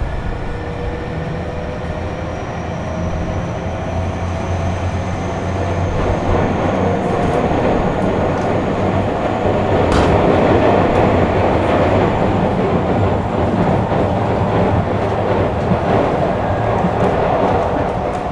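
Tobu train car 59009 running: a motor whine rising slowly in pitch under the steady noise of wheels rolling on rail, which grows louder from about six seconds in, with a sharp click from the track about ten seconds in.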